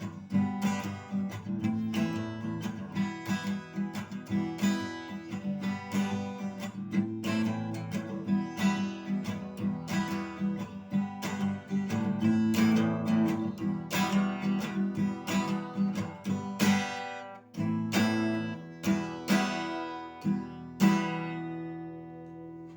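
Acoustic guitar strummed in a steady rhythm through the song's closing instrumental. Near the end it slows to a few last strums, and the final chord rings out and fades.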